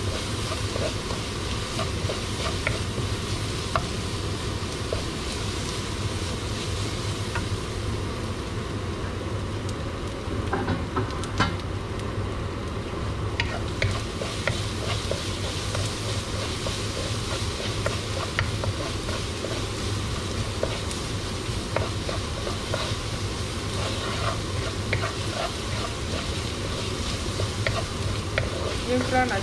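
Rice sautéing in a nonstick frying pan: a steady sizzle with a wooden spoon stirring and scraping the grains around the pan, making many small irregular clicks.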